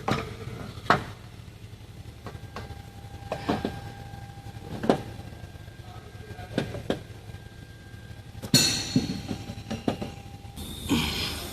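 Irregular metallic knocks and clinks of hand tools and parts being handled during reassembly in an engine bay, about a dozen scattered strikes, the loudest a short rattle about eight and a half seconds in. A faint steady whine sits underneath for a few seconds in the middle.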